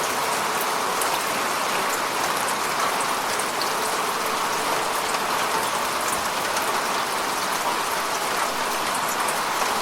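Steady falling rain: an even hiss with scattered small drop ticks.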